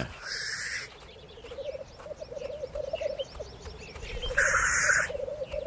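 Male black grouse giving their courtship display calls: a continuous bubbling, cooing song, broken twice by loud hissing 'sneeze' calls, one at the start and one about four and a half seconds in.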